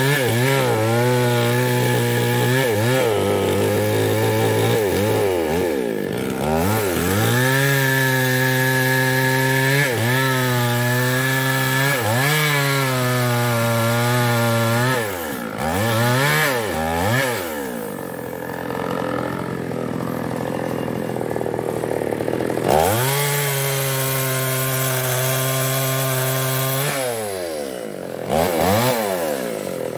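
Chinese-made two-stroke chainsaw cutting mahogany wood. The engine speed drops sharply and climbs back up several times.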